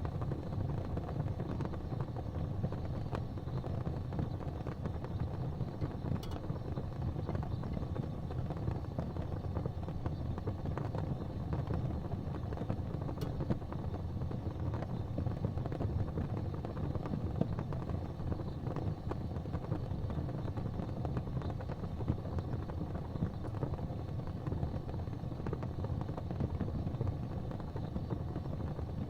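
Gas fireplace burning: a steady low rumble of the gas flames, with a couple of faint ticks.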